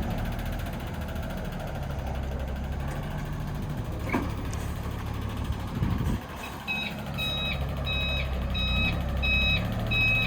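Crane delivery truck's engine running steadily as it manoeuvres. About six seconds in, its reversing alarm starts, beeping about twice a second.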